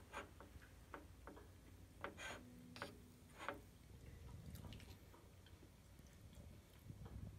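Faint clicks and light taps of wooden chopsticks against ceramic dishes, about half a dozen in the first half.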